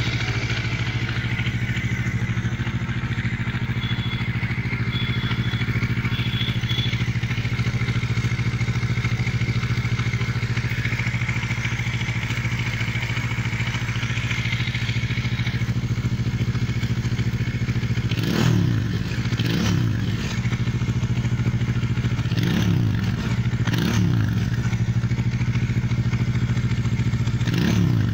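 Bajaj Dominar 400's single-cylinder engine idling steadily through its twin-outlet exhaust, then blipped briefly about five times in the second half, each a quick rise and fall in pitch.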